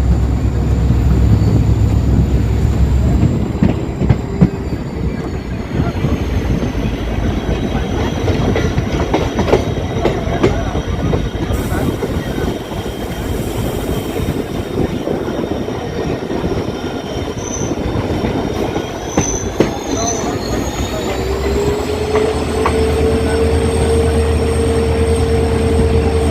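Passenger train running behind a WDP4D diesel locomotive: a steady rumble and rattle of coach wheels on the track with many small clicks. The locomotive's low hum is loud at first, falls away for most of the stretch, and comes back near the end with a whine that rises and then holds steady.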